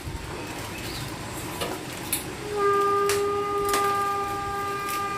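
A spoon clicks and knocks against a pressure cooker pot while rice and mutton are stirred. From about two and a half seconds in, a long steady horn sounds over it, one pitch held for several seconds, and it is the loudest thing heard.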